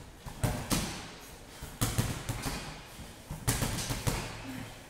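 Gym equipment thudding and knocking in clusters, a few sharp impacts every second or two.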